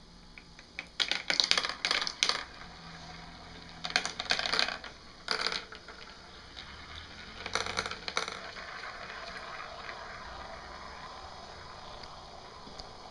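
Steel marbles clacking and rattling through a plastic marble run: four bursts of quick clicks over the first eight seconds, then a softer steady rattle of marbles rolling along the track.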